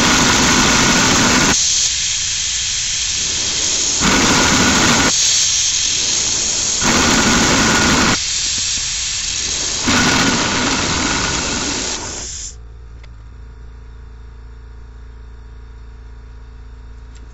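Smithy 3-in-1 milling machine cutting a dovetail slot in metal: a loud hissing rush that swells and eases several times as the cut goes on, then drops sharply about twelve seconds in to a low, steady hum.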